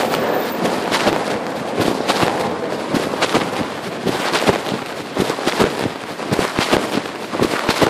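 Pocket fabric rubbing and scraping over a phone's microphone as its owner walks: a loud, constant rustle broken by irregular crackles and knocks.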